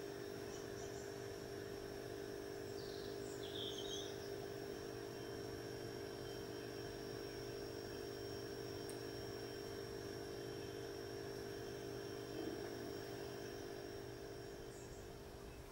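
A steady mechanical hum of several low tones runs throughout, with a thin high whine above it. A few faint, short high bird chirps sound near the start, about three to four seconds in, and near the end.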